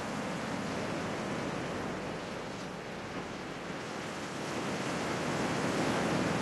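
Ocean surf washing onto a sandy beach, a steady rushing wash of breaking waves that swells louder in the second half.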